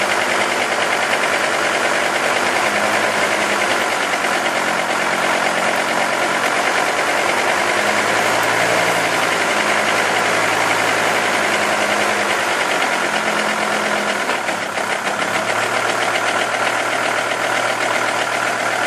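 Volvo V70 driving, with a GSP wheel bearing humming over steady road and engine noise; the low hum swells and fades. The noise is the sign of a bad wheel bearing.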